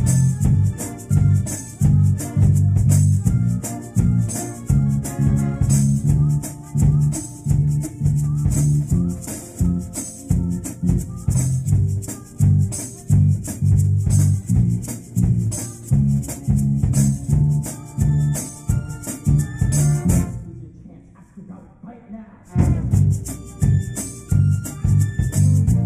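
Musical-theatre pit band playing an up-tempo number, with strong bass and drum hits on a steady beat under a quick rattling shaker rhythm. The music stops for about two seconds near the end, then starts again.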